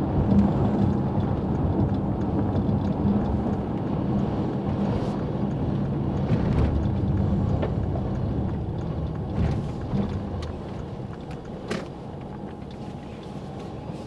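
Car running on a wet road, heard from inside the cabin: a steady engine and tyre hum that fades over the second half as the car slows to a stop, with a few sharp ticks.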